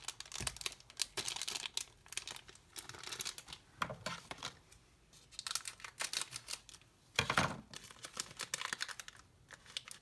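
The plastic wrapper of a football trading-card pack being crinkled and torn open, crackling in several bursts; the loudest comes about three-quarters of the way through.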